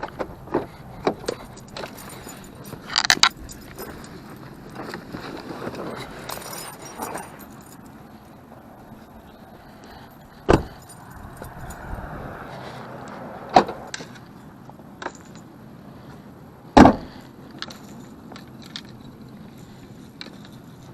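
Wind rushing over the camera microphone, with a run of small clicks and metallic rattles in the first several seconds, then three sharp knocks spread over the second half, the last the loudest.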